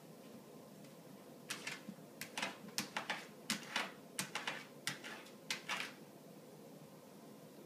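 Siberian husky puppy's claws clicking on a tile floor as it moves around: a quick, irregular run of about fifteen sharp clicks, starting about a second and a half in and stopping about six seconds in.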